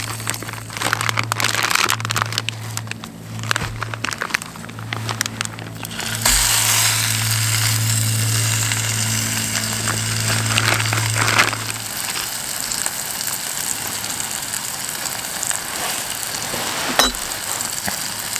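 Plastic zip-lock bag crinkling in the hands. About six seconds in, food goes into a hot frying pan on a backpacking canister stove and sizzles steadily.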